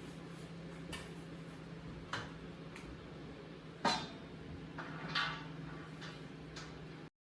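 Light metallic clinks and knocks from handling sheet-steel cabinet panels and hardware during assembly: a handful of separate taps, the loudest about four seconds in, over a faint steady hum. The sound cuts off suddenly near the end.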